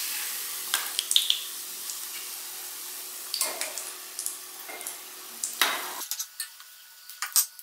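Ghee sizzling steadily as gulab jamun fry in a small pan, with scattered light clicks and scrapes of a steel slotted spatula against the pan and a steel pot.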